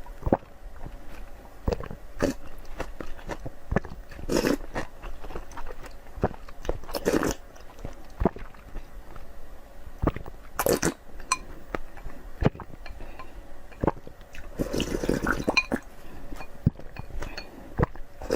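A person chewing and biting food close to the microphone: a steady run of small wet mouth clicks, with louder bites every few seconds.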